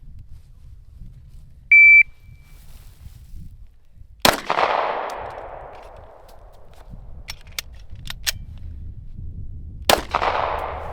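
Shot timer's start beep, a short steady high tone, then two pistol shots about five and a half seconds apart, each ringing out across the range. Between the shots come a few small clicks of a magazine reload, as in a one-shot, reload, one-shot drill.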